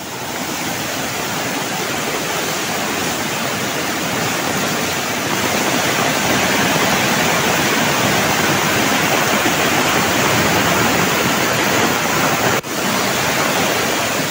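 Muddy landslide runoff rushing down a hillside stream in a steady, loud torrent, briefly dropping out once near the end.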